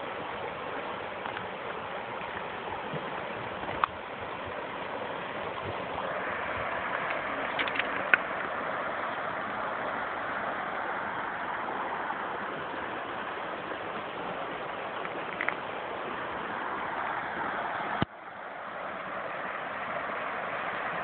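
Shallow river rushing over broken concrete rubble: a steady rush of water. A few sharp clicks sit on top, the loudest about eight seconds in, and after a click near the end the rush dips briefly.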